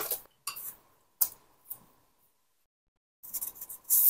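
Flour being tipped from one bowl into a larger bowl: a few short, soft rustles and scrapes, then a quick cluster of them near the end.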